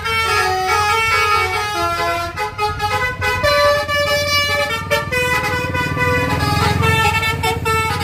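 Bus telolet horn, a Basuri multi-tone air horn, playing a melody in quick stepped notes over the low rumble of the bus engine.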